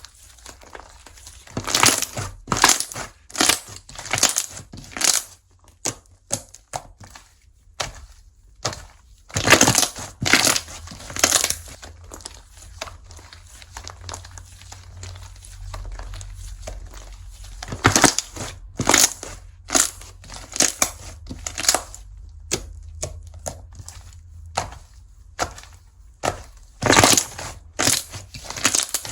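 Slime being squeezed and pressed by hand, giving irregular clusters of sharp clicks and pops with quieter stretches between.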